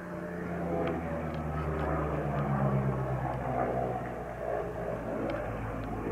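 Propeller-driven piston-engined aircraft droning overhead, the engine note sliding slowly lower in pitch as they pass.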